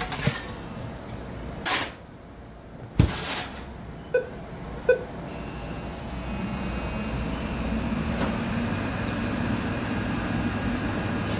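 A few clicks and a knock, then a Merrychef speed oven beeps twice and its fan starts up and runs steadily with a low hum: the oven powering on.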